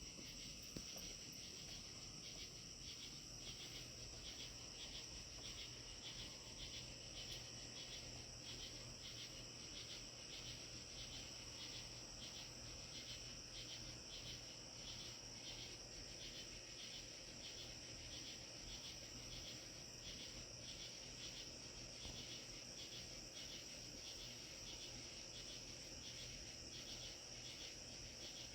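Evening chorus of crickets: a faint, steady high trill overlaid with rhythmic chirping about twice a second.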